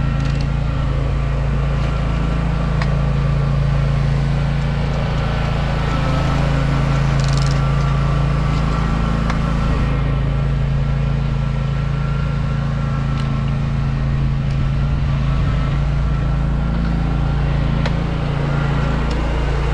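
John Deere Z530R zero-turn mower's engine running steadily at a constant speed.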